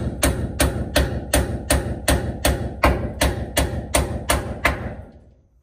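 Hammer driving nails into a wooden roof timber: steady, evenly spaced blows, about three a second, that stop near the end.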